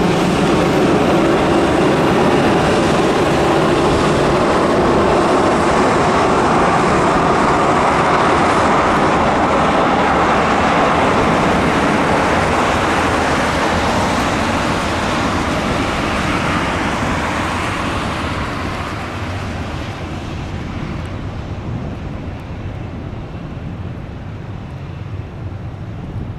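Jet engines of a Boeing 737-800, its CFM56-7B turbofans, running loud and steady with a faint high whine, then fading away over the last several seconds as the aircraft moves off.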